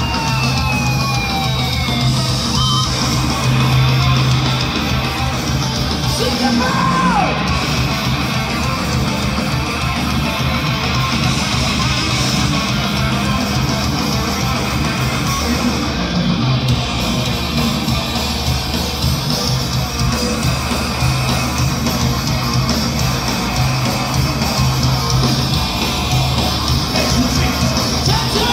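Thrash metal band playing live at full volume: distorted electric guitars, bass and drums in a dense wall of sound, with shouted vocals.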